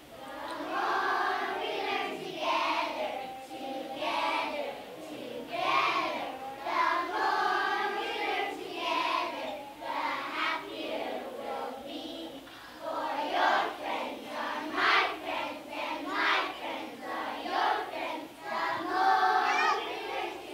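A choir of young children singing a song together on stage.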